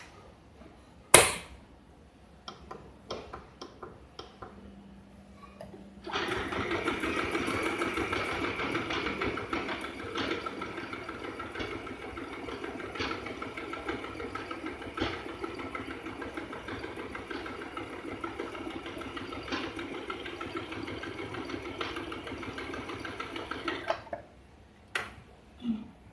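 FHSM-702 sewing machine running steadily and stitching for about eighteen seconds, then stopping abruptly. Before it starts come a sharp knock and a few light clicks of handling the machine; a few more clicks follow after it stops.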